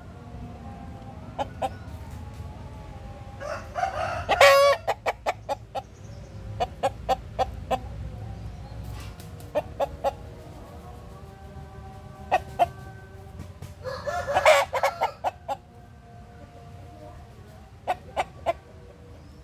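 Rooster crowing twice, each crow loud and about a second long. Runs of short, sharp clucks come between the crows, and fainter calls sound in the background.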